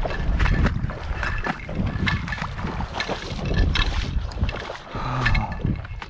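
Wind buffeting the microphone in gusts, with scattered brief rustles and knocks on top.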